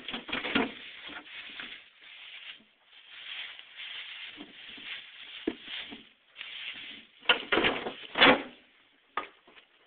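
Someone eating grapefruit: irregular close-up rustling and rubbing eating noises, with a cluster of louder bursts near the end.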